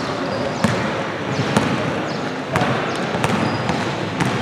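Basketball dribbled on a hardwood gym floor: a handful of sharp bounces, roughly one a second, over steady gym background noise.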